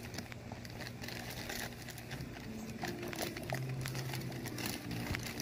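Plastic zip-lock bag crinkling and rustling with small irregular clicks as hands work slime in a plastic bowl.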